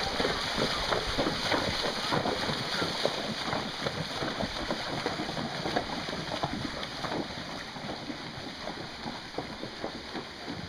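Several cob horses wading up a shallow stream, their hooves splashing and churning the water in a continuous irregular patter of splashes. The splashing fades gradually as the horses move away.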